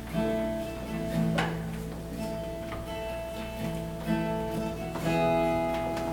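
Worship music: an acoustic guitar strumming chords over steady held notes, with a strum roughly every second.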